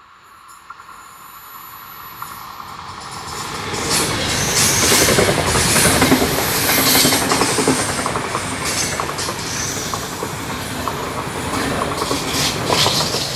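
Intercity train of coaches with a red DB Class 101 electric locomotive at the rear passing at speed. The rush of wheels on rail swells as the train comes closer and is at its loudest from about four seconds in, with a steady rumble, quick clicking of wheels over the track and a thin high ring as the coaches go by.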